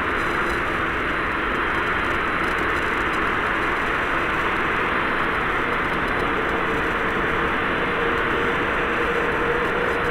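Steady jet engine noise from aircraft running on the ground, with a faint tone that rises slightly near the end.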